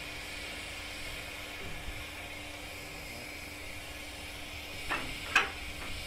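Steady hiss of steam escaping from a small 15-inch gauge steam locomotive, with two sharp metallic knocks about five seconds in.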